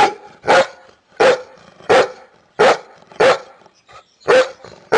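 Dog barking repeatedly, about seven sharp barks at an even pace with a short pause near the end.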